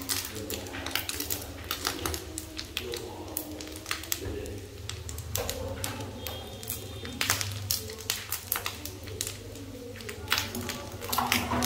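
Small dried fish sizzling in a frying pan of bubbling sweet-and-sour sauce, with wooden chopsticks clicking and scraping against the pan as they turn the fish. A steady low hum runs underneath.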